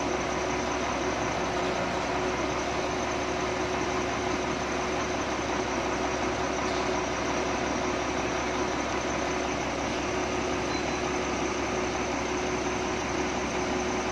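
Doosan wheel loader's diesel engine idling steadily.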